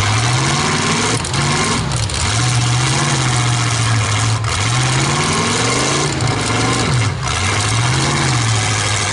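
Demolition derby pickup truck engines revving up and down, the pitch rising and falling about four times as the trucks drive and reverse. A few sharp knocks come in between.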